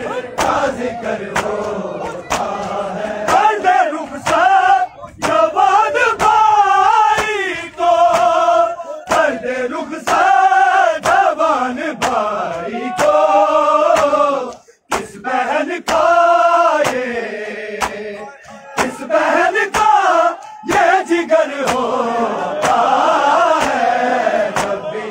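A group of men chanting a noha, a Shia Muharram lament, in unison. A steady beat of sharp slaps from matam, mourners striking their bare chests with open hands, cuts through the singing.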